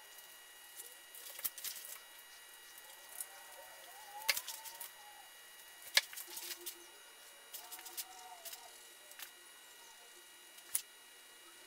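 Scissors cutting and handling a clear plastic pattern sheet on a work table: sparse sharp clicks and light rustles, the loudest click about six seconds in as the scissors are set down.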